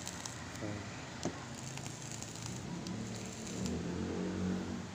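Single coil in a rebuildable tank atomizer firing at 20 watts, e-liquid in the cotton wick sizzling and crackling as it vaporizes, with one sharp click about a second in. A faint low hum rises near the end.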